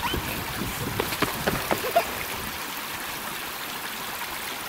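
Shallow mountain creek running over rocks and logs: a steady rushing wash of water.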